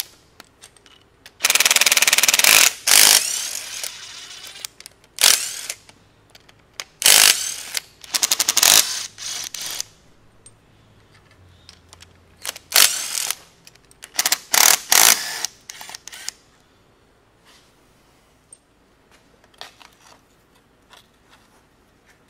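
Cordless impact drivers, one a DeWalt, hammering intake manifold bolts loose in a series of short rattling bursts, the first and longest about a second and a half. The bursts stop after about fifteen seconds.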